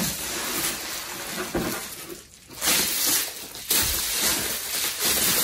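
Bubble wrap crinkling and kraft packing paper rustling as a wrapped laptop is pulled out of a cardboard box and handled. The crinkling comes in uneven stretches, with a brief lull about two seconds in.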